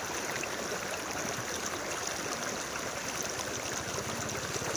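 Steady rushing and sloshing of deep floodwater as people wade through it.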